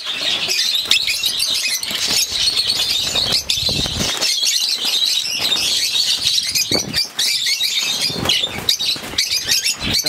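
A flock of lovebirds chattering and squawking continuously in a dense, high-pitched chorus, with wing flutters and occasional short knocks.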